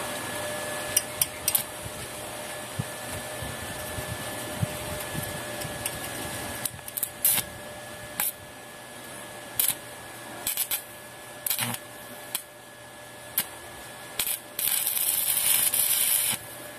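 Electric arc welding: the arc is struck again and again in short sharp crackles, then held for about two seconds of steady crackling and sizzling near the end as a bead is laid, over a faint steady hum.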